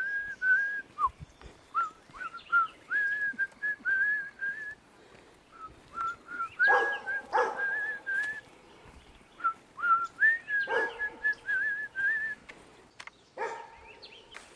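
A person whistling a tune in short phrases. A dog barks a few times partway through, about seven seconds in and again near eleven seconds.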